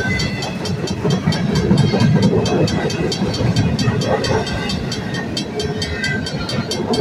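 Freight train of intermodal well cars rolling past at speed: a steady rumble of steel wheels on rail, with rapid, even clicking and a few thin high tones.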